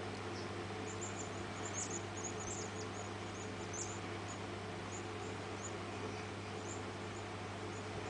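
Faint, irregular tiny metallic clicks and scrapes of a lock pick working the pin tumblers of a Yale 5-pin padlock under tension, over a steady low hum.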